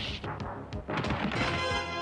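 Cartoon action-scene music with a few quick noisy whoosh-and-hit sound effects in the first second; held musical notes take over near the end.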